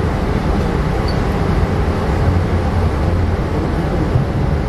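Steady low rumble of a 25G passenger coach running on the rails at speed, heard from inside the coach: wheel-on-rail and running noise with no distinct beats.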